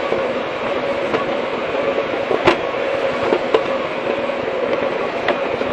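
Hydraulic excavator running, a steady engine noise with a held whine, and a few sharp knocks, the loudest about two and a half seconds in.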